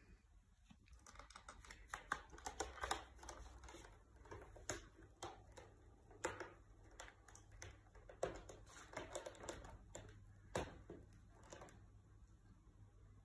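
Maine Coon cat's claws scratching and catching on a sisal scratching post: irregular runs of quick scratchy clicks, in bursts.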